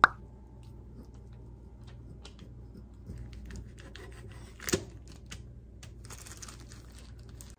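Scattered small clicks and crackles over a low steady hum, with one sharper click a little under five seconds in: kitchen sounds as a samgyeopsal dinner gets under way.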